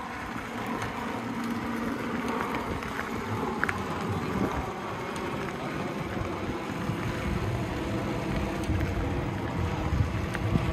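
A noisy bicycle being ridden over gravel: steady tyre rumble with scattered rattles and clicks from the bike.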